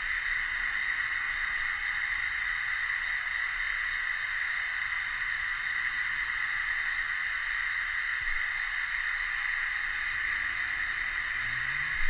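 Cicadas calling in a steady, unbroken chorus.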